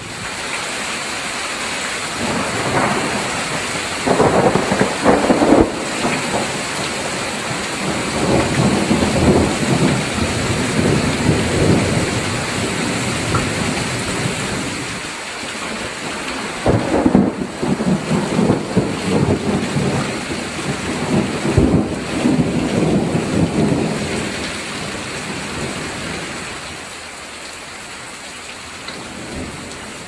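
Thunderstorm: steady heavy rain with long rolling rumbles of thunder that swell and fade several times, the loudest about four and seventeen seconds in; the storm eases off near the end.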